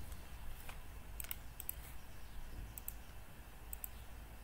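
Computer mouse clicking: about four pairs of short, sharp clicks, each a button pressed and released, over a faint low hum.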